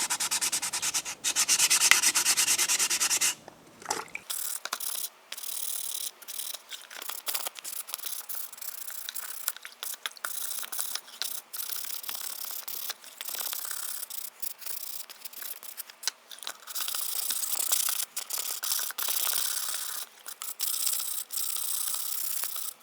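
Sandpaper wet-sanding primed 3D-printed plastic prop parts in quick back-and-forth strokes. About four seconds in the sound thins out and goes on as lighter, stop-start rubbing.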